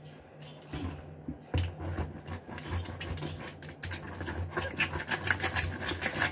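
Lemon halves being pressed and twisted on a citrus juicer's cone, a run of irregular rubbing, squishing strokes as the juice is squeezed out, over a steady low hum.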